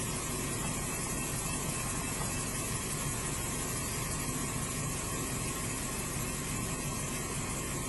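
Car engine idling steadily, heard from inside the stopped car.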